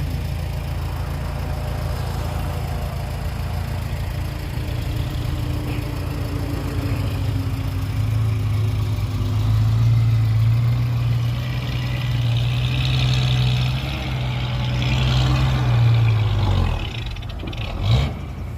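Heavy diesel engine of earthmoving machinery running, then pulling harder and louder from about eight seconds in. It holds there for several seconds, then drops back abruptly near the end, with a short sharp knock just after.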